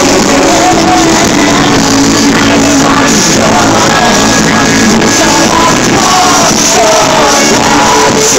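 Live pop music played loud through an arena sound system, with a voice singing over it.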